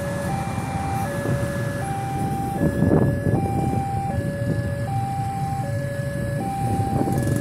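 Railway level-crossing warning alarm sounding an electronic two-tone chime, switching between a low and a high note about every three-quarters of a second. Under it are the rumble and wheel clatter of a passing train of coaches.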